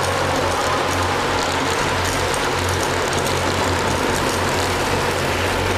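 Steady rushing wind and road noise from riding a bicycle through a road tunnel, over a steady low hum.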